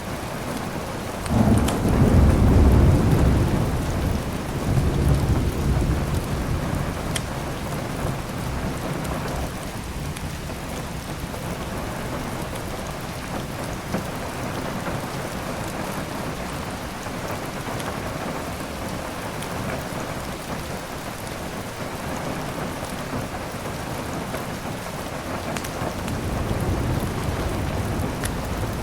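Steady heavy rain with a roll of thunder. The thunder breaks in about a second in and rumbles for a few seconds, with a weaker second roll right after it. The rain then goes on alone and swells slightly near the end.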